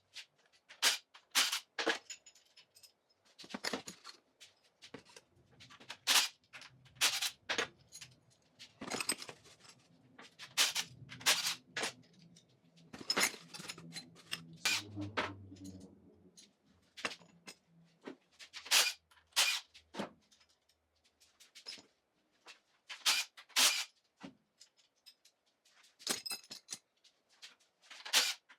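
Small steel valve-train parts of a Chevy 454 big block, rocker arms and pushrods, clinking and clicking irregularly as they are handled and set down in order. A faint low hum runs through the middle.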